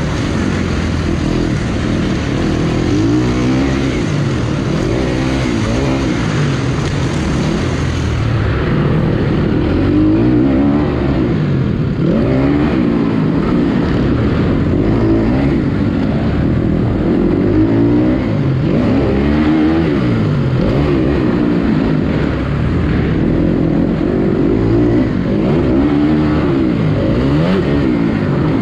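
Motocross bike engine at riding speed, revved hard and backed off again and again through the corners and jumps. Its pitch climbs and drops roughly every two seconds.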